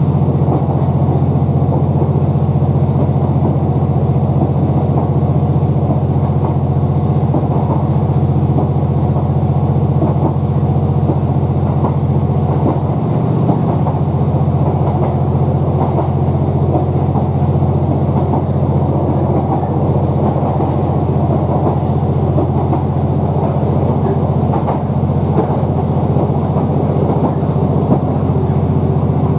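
Interior of a Class 769 bi-mode train coach running on diesel: the underfloor MAN D2876 six-cylinder diesel engine drones steadily beneath a rumble of wheels on the rails.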